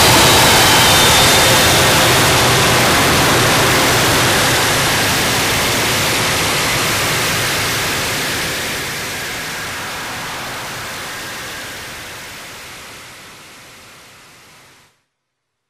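Japanese harsh noise music: a dense wall of hiss and static with no tones or rhythm. It fades out steadily, thinning at the top, and cuts off suddenly into silence near the end, as a track ends.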